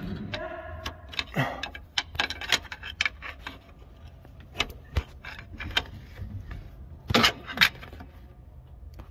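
Pry bar clinking and knocking against the clutch adjusting lugs inside the bell housing of a Versatile 895 tractor, a run of irregular sharp metallic clicks as the clutch adjusting ring is levered round to set the pedal free play.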